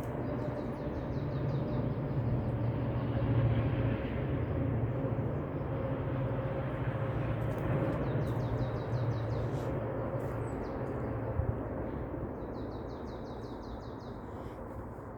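A low, steady rumble of distant passing vehicles, swelling over the first few seconds and then slowly fading. Three times, a small bird gives a short, rapid trill of high, evenly spaced notes.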